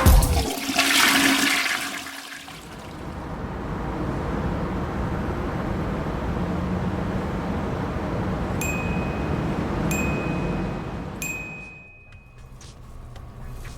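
A steady rushing, water-like noise that swells in and runs for several seconds before fading, with three short ringing dings about a second and a half apart near the end.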